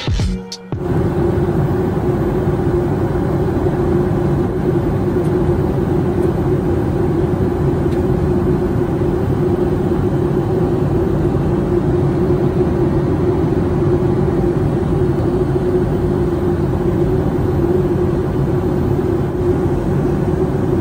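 Steady cabin noise inside a Boeing 737 MAX 8-200 in flight: the roar of airflow and its CFM LEAP-1B engines with a constant mid-pitched hum. A lofi beat cuts off within the first second.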